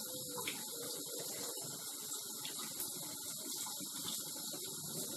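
Kitchen tap running steadily in a thin stream, splashing over hands and a shaggy ink cap mushroom being rinsed above a stainless steel sink.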